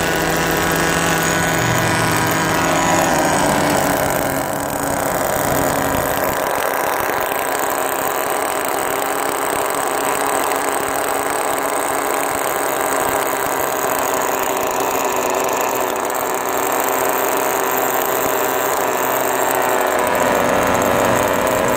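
Small nitro glow engine of an RC car idling steadily. The engine is not yet broken in, so its idle is hard to hold.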